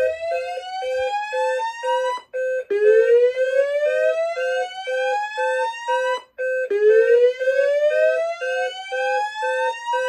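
Notifier DVC voice evacuation system sounding its slow whoop alarm tone through a wall speaker: a rising sweep about every four seconds, signalling a fire alarm. A steady rapid beeping runs underneath.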